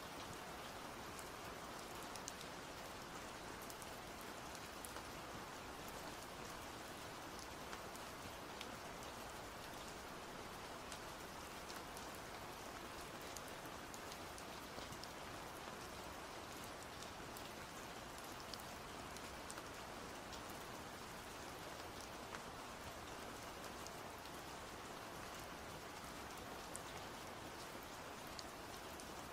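Steady rain falling: an even hiss with many scattered individual drops ticking.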